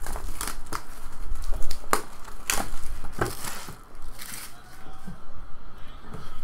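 Printed wrapper being torn and crumpled off a sealed trading card box: a run of sharp rips and rustles through the first three and a half seconds, then quieter handling.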